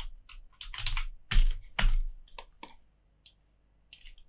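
Computer keyboard being typed on: irregular keystroke clicks, the loudest a pair about a second and a half in, thinning out toward the end.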